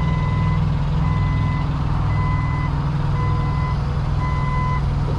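Forklift backup alarm beeping steadily, about one beep a second, as the forklift reverses under load, over the steady low drone of an engine running.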